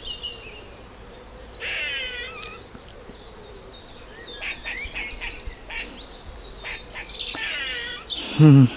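Eastern grey squirrel giving its alarm call: rapid runs of squeaky chirps, with a louder, harsher call near the end. It is the tail-flicking threat call of a squirrel alarmed by something nearby.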